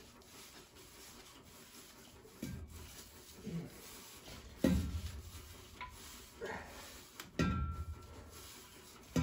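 Amtrol Extrol ST12 steel expansion tank being twisted off its threaded fitting by hand: a few short, dull knocks and clunks of metal, the loudest about four and a half and seven and a half seconds in.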